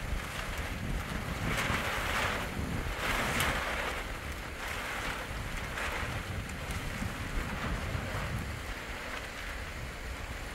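Storm wind gusting and blowing across the microphone: a steady rushing noise with low buffeting rumble, swelling in several gusts over the first six seconds and again near the end.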